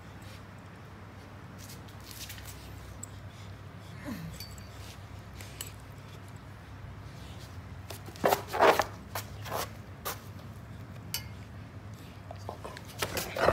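Great Pyrenees and German Shepherd puppies play-wrestling: soft scuffling and mouthing, with a puppy giving a few short cries about eight seconds in and again near the end.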